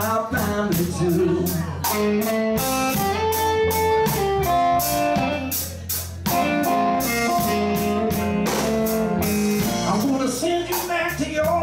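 Live blues band playing an instrumental passage: electric guitar lead lines with held, bending notes over a walking bass and a drum kit keeping a steady beat on the cymbals.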